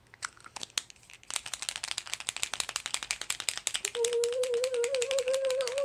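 Paint marker being shaken hard, its mixing ball rattling inside the barrel in a fast, even click about ten times a second to get the paint to flow on the pen's first use. Over the last two seconds a steady, slightly wavering hummed tone rides on top.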